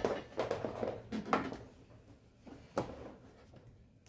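Handling noise on a workbench: a sharp knock at the start, then rustling with a few more knocks, and one more knock a little before the end.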